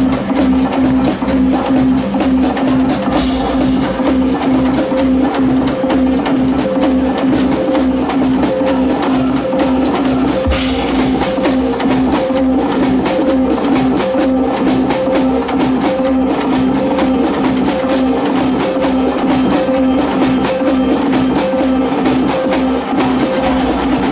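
Loud music with a steady drum beat and a held low note.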